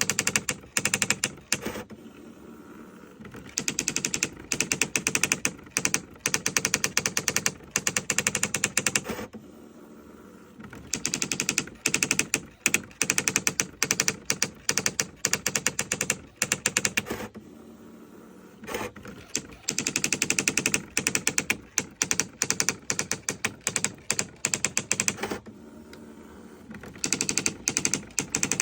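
Olivetti ET 55 electronic daisy-wheel typewriter printing in fast, evenly spaced runs of strikes. Each run stops briefly about every seven to eight seconds, four times in all.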